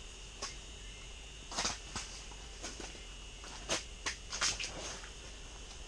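Short scattered rustles and scrapes of a person getting up and moving about, over a faint steady high-pitched hum.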